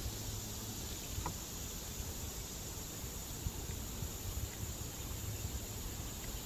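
Steady outdoor background noise: an irregular low rumble, like wind on the microphone, under a faint even high hiss, with one faint tick about a second in.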